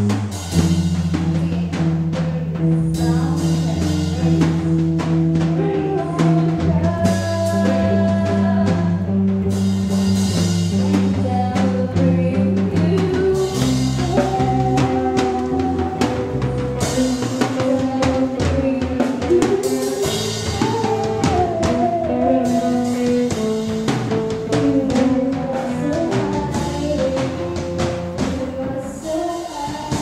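Live church worship band playing a song at a sound check: electric guitar and drum kit with steady drum hits, and singing over the instruments.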